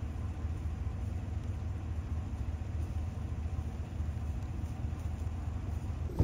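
Truck engine idling: a steady low rumble.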